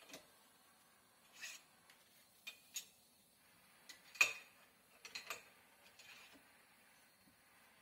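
Scattered light metallic clicks and clinks as a hand tool is worked back and forth to unscrew a heated Showa upside-down fork tube from its lower caliper mount in a vise. The loudest click comes about four seconds in, with a quick cluster of three or four clicks just after five seconds.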